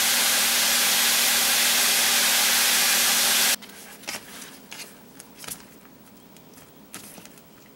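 A loud, steady hiss with a low hum underneath lasts about three and a half seconds, then cuts off suddenly. After that come faint rustles and light taps of hands working meat in a metal bowl of flour.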